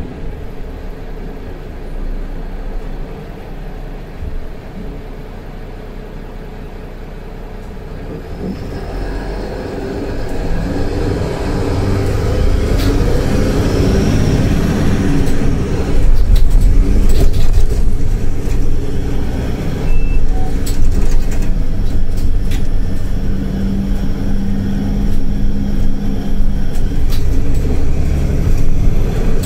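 Mercedes-Benz Citaro C2 LE Ü city bus heard from on board, its diesel engine and drivetrain running quietly at first. The sound grows louder from about eight seconds in as the bus pulls harder, and stays loud and steady under load.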